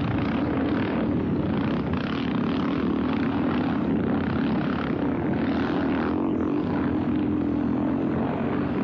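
500cc scrambles motorcycle engines running hard at racing speed, a steady, unbroken drone.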